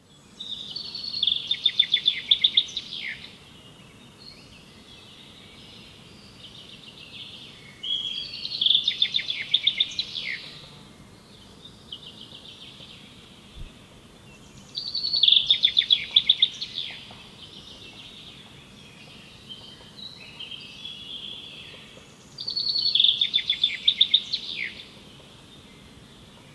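A songbird singing four loud trilled phrases, each two to three seconds long and about seven seconds apart, with fainter birdsong between them over a quiet forest background.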